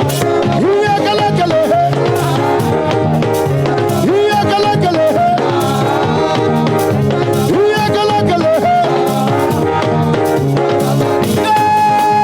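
Live church praise band playing an upbeat dance groove with drums, while singing voices carry a melody with sliding notes.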